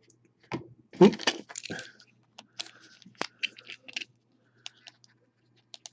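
Trading card packaging and cards being handled: a crinkling, crackling rustle with irregular sharp clicks, loudest about a second in.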